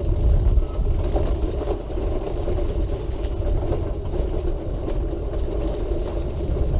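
Quickie Q700 mid-wheel-drive power wheelchair driving along a path: a steady drive-motor whine over the rumble of its wheels on the surface, slightly noisy.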